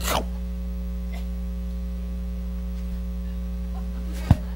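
Steady electrical mains hum picked up by the recording's sound system, with a short burst of noise at the very start and a single sharp click about four seconds in.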